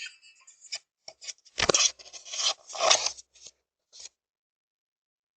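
Scratchy rubbing and scraping picked up by a Ring video doorbell's microphone, in uneven bursts cut by gaps of dead silence, the loudest a little before halfway and again about three seconds in.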